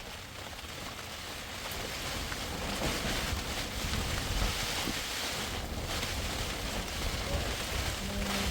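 Storm wind gusting and buffeting the microphone, a rushing noise with a low rumble that slowly grows louder.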